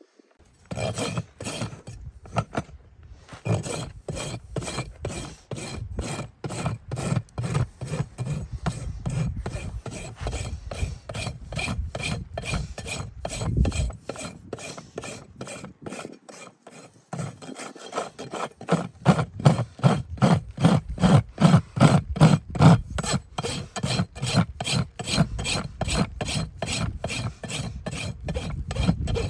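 Farrier's hoof rasp filing a horse's hind hoof in quick, even strokes, about three a second. There are short pauses near the start and a little past halfway, and the strokes are louder in the last third.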